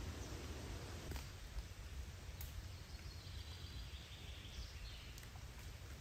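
Forest ambience: a steady low rumble with a faint high-pitched buzz or call from about three to five seconds in, and a few soft clicks.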